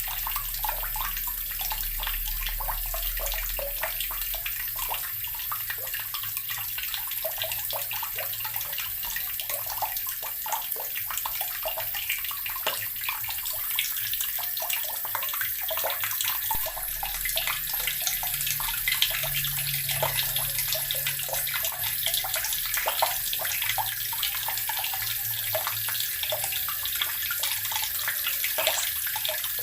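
Water running steadily from a tap and splashing into water below, a continuous hiss with many small splashes.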